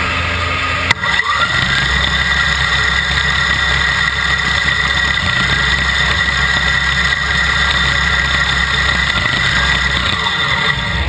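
Electric motors of a FIRST robotics competition robot, heard from on board: a sharp click about a second in, a short rising whine as they spin up, then a steady whine as the robot shoots basketballs.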